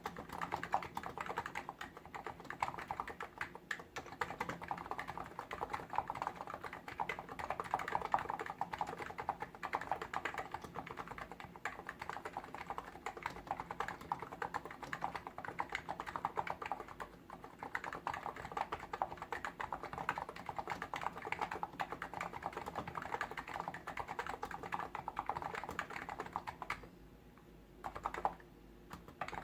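Fast, continuous typing on a Hansung GTune CHL8 tenkeyless keyboard with electrostatic capacitive (Topre-style, 무접점) switches: a dense stream of keystrokes, pausing briefly near the end before a few more keys are struck.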